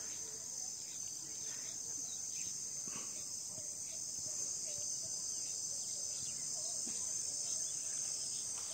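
Steady high-pitched insect chorus in the countryside, with faint background sounds below it.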